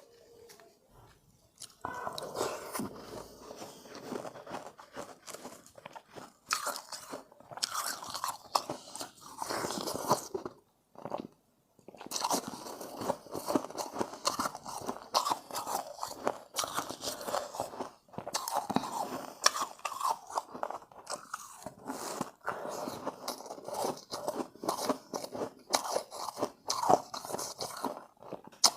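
Close-up crunching and chewing of refrozen shave ice: hard, irregular crunches in quick succession as mouthfuls are bitten and chewed. The crunching starts about two seconds in and pauses briefly about ten seconds in.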